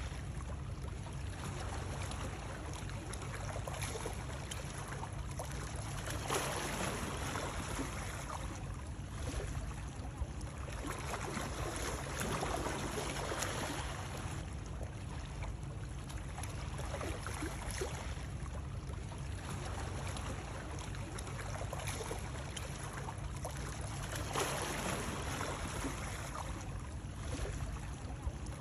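Continuous water noise, running water that swells and eases every few seconds over a steady low rumble, used as soothing white noise.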